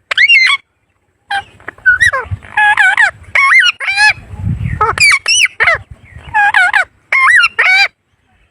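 Pet parrot calling in a rapid series of short squawks that bend up and down in pitch, with a brief pause about a second in; the calls stop shortly before the end.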